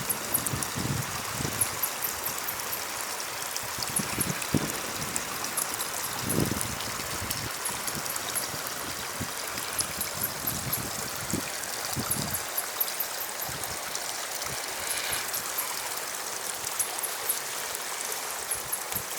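Running water trickling and gurgling steadily, with small splashes and low gurgles here and there.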